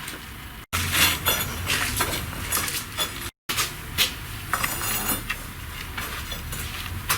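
Bricklaying: irregular sharp clinks and taps of masonry tools against hand-moulded clinker bricks as a row is laid. The sound cuts out abruptly twice.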